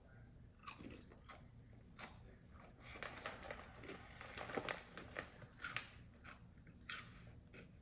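A person chewing crunchy garlic aioli chips, with irregular crisp crunches that come thickest in the middle.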